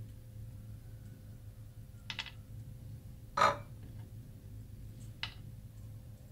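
Three short, light taps and clicks of a kitchen knife's tip against a wooden cutting board as seeds are picked out of halved calamansi; the middle one, about halfway through, is the loudest. A low steady hum runs underneath.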